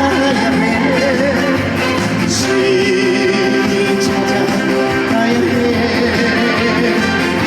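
Live amplified trot music: the band playing an instrumental break with a steady beat under a wavering melody line.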